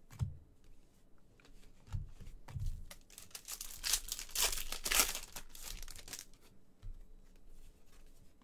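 Trading cards being flipped through and slid off a stack by hand, the card stock scraping and rustling for about three seconds in the middle, with a few low thumps in the first three seconds as cards are handled on the table.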